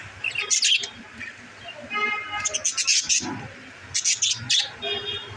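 Pet budgerigars chirping in several quick bursts of high chirps, with one longer, steadier call about two seconds in.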